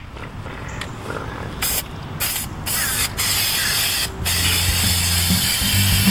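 Aerosol can of Fluid Film lanolin rust inhibitor spraying onto a steel mower deck: a hiss in several bursts with short breaks, steadier in the second half.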